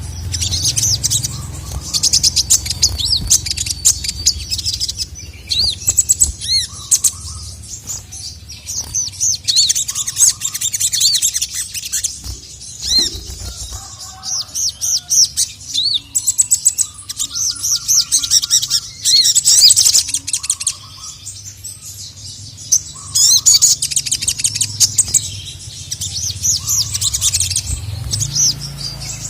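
Sogok ontong (sogon), a spiderhunter, singing excitedly in rapid bursts of high-pitched chirps and arching notes with short pauses between phrases, over a low steady hum.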